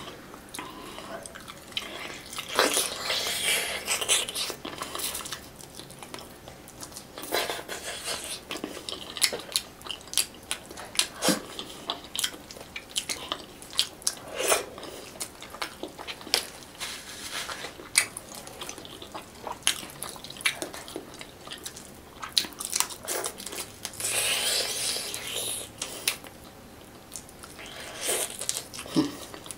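Close-miked eating of saucy fish by hand: wet chewing and smacking mouth sounds with many short sharp clicks. Two longer noisy stretches come a few seconds in and again near the end.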